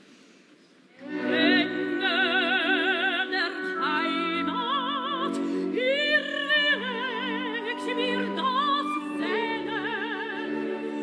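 Operatic soprano singing in German with a wide vibrato, over orchestral accompaniment; the singing comes in about a second in, after a brief hush.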